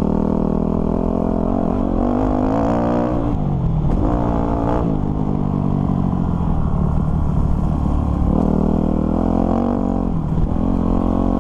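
Dirt bike engine running hard on a dirt track, rising in pitch as it accelerates and dropping as the throttle closes, about three seconds in and again near ten seconds.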